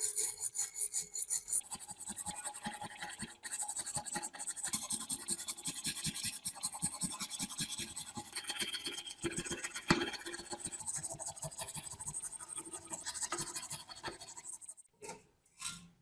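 Rust being scraped off metal by hand, with quick repeated rasping strokes. The strokes fade near the end, and two short scrapes follow.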